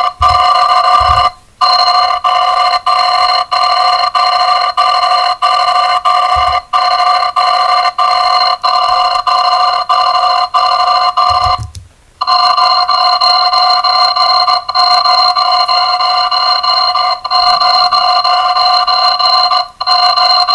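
An electronic alarm sound effect played back greatly sped up, so its ringing merges into a loud, steady, high-pitched chord of several tones. The chord is broken by short gaps about every half second, with longer breaks about a second and a half in and about twelve seconds in.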